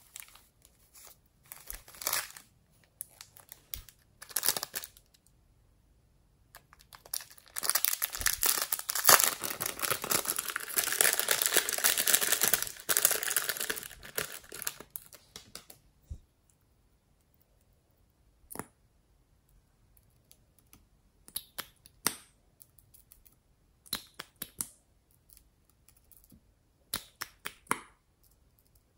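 Clear plastic bag crinkling loudly as it is squeezed and shaken to pour sequin confetti onto slime, from about seven to fifteen seconds in. Before it come a few short rustles, and after it scattered sharp, sticky clicks as the slime is handled and stirred.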